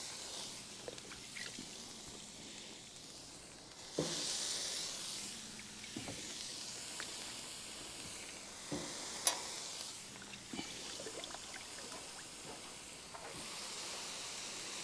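Soaked ears of corn sizzling and hissing on a hot Camp Chef grill box over a stove burner, with several knocks as the ears are laid on and shifted about the grate. The hiss gets louder after a knock about four seconds in.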